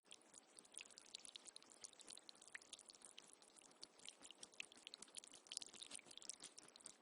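Faint water sound: a dense, irregular patter of tiny drips and crackles over a soft hiss.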